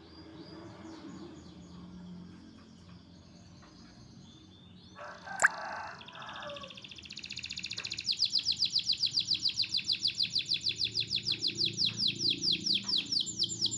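Songbird singing: soft chirps at first, then from about eight seconds in a loud, fast trill of repeated falling notes, about five a second. A single sharp click sounds a little past five seconds.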